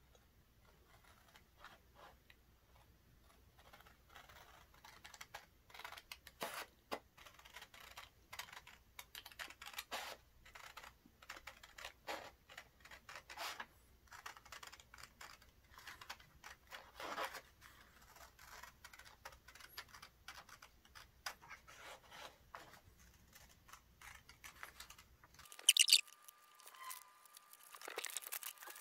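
Scissors snipping through a sheet of paper: a quiet, irregular run of short cuts, several a second. Near the end comes a brief, louder rustle of paper.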